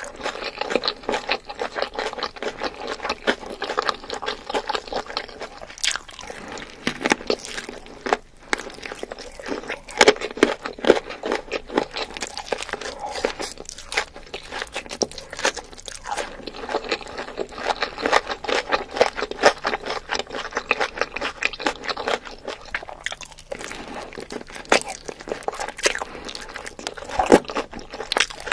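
Close-up chewing and biting of crunchy food, a dense run of crisp crunches and crackles with a few sharper snaps.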